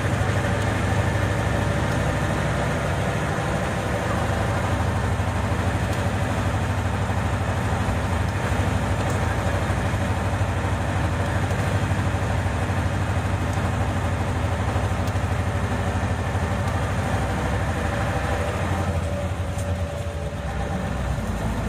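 Isuzu Erga city bus engine running with a steady low hum under road and cabin noise. About nineteen seconds in, the higher noise briefly drops away and the engine note shifts.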